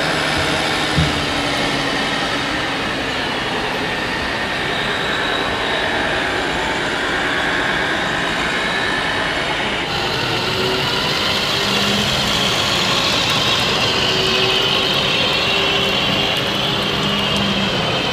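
Steady engine-like running from large-scale RC model vehicles over the constant din of a busy exhibition hall, with a single knock about a second in.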